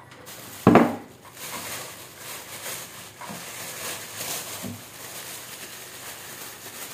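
A short thump about a second in, then a clear plastic bag rustling and crinkling as a bundle of water spinach is handled and pulled out of it.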